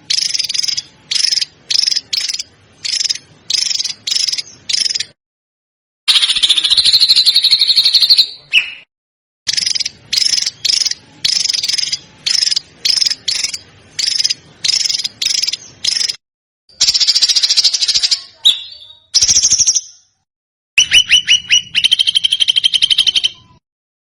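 A small songbird's rapid, harsh chattering calls, edited into a loop: short bursts about half a second long, roughly one a second, broken by longer trills and a run of quick rising notes near the end, with dead silence cut between some phrases.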